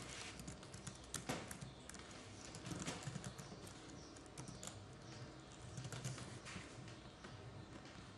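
Faint, irregular clicking of a computer keyboard being typed on, with a few mouse clicks.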